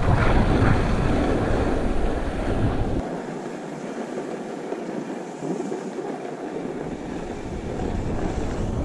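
Wind rushing over an action camera's microphone as the skier wearing it goes downhill, with the skis hissing over groomed snow. The heavy low buffeting drops away about three seconds in and slowly builds back near the end.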